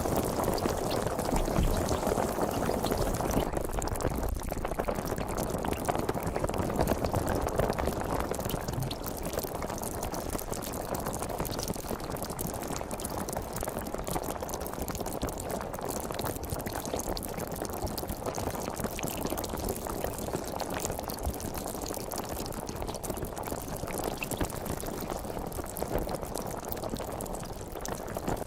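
Sparkling water fizzing: a dense, steady crackle of carbonation bubbles rising and popping, a little louder in the first several seconds.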